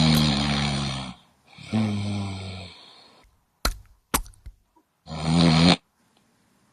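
A person snoring loudly with a low, pig-like grunting tone: three long snores, the last one shorter, with two brief clicks between the second and third.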